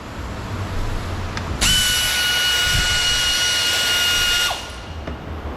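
Cordless drill-driver spinning at a steady whine for about three seconds, starting a little over a second in and winding down at the end as it backs out a door trim panel screw.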